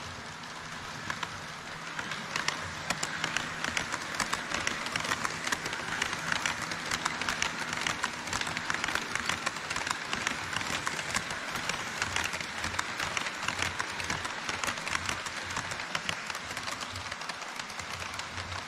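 HO scale model trains crossing a plastic truss bridge on KATO Unitrack: an E5 series Shinkansen model, then a string of container wagons. Their metal wheels make a steady, rapid clicking rattle over the rail joints, which gets louder about two seconds in.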